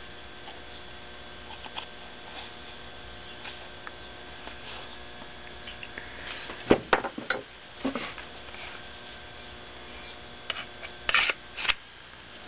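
Steady electrical hum with clicks and knocks from a fixed-blade knife, ferro rod and kydex sheath being handled: a cluster of knocks a little past the middle, the loudest moment, and a quick group of sharp clicks near the end.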